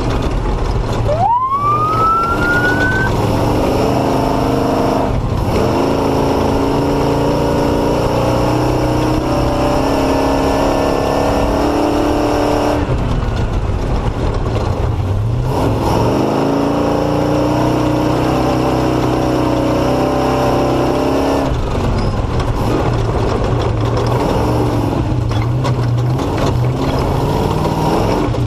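Off-road motorcycle engine running hard while riding, the throttle shut off briefly several times and the pitch climbing again each time it picks back up, with one sharp rising rev about a second in.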